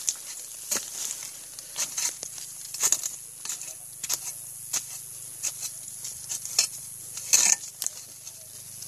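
A long-handled harvesting chisel jabbed into the stalk of an oil palm fruit bunch among the spiny fronds: irregular sharp crackling scrapes and strokes, the loudest about seven and a half seconds in, over a steady high hiss.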